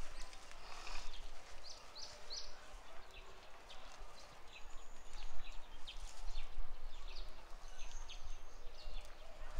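Outdoor ambience with birds chirping: short high calls scattered throughout, three quick chirps in a row about two seconds in, over a low rumble.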